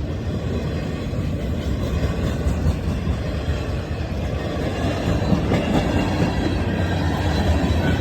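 Two freight trains passing each other on neighbouring tracks in opposite directions: a steady rumble of steel wheels on rail, growing louder from about halfway through, with rail clacks near the end.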